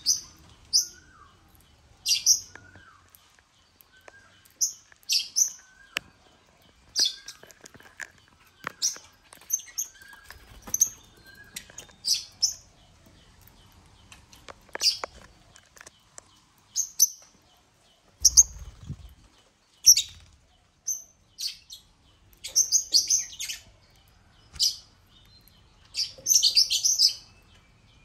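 African lovebirds (Agapornis) calling: sharp, high chirps, singly or in quick runs every second or two, busier in two spells in the last third. A few faint clicks and low thuds are heard among them.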